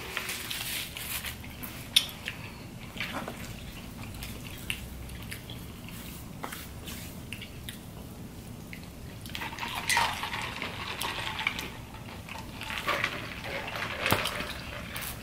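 Table-side eating and handling sounds: scattered clicks, taps and rustles of cardboard food boxes, paper and containers, with one louder tap about two seconds in. Near the end, soft drinks are sipped through straws from paper cups.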